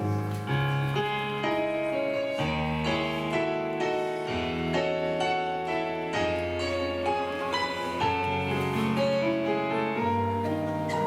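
Piano playing the slow instrumental introduction to a hymn: a melody over sustained chords, the notes starting one after another at an unhurried pace.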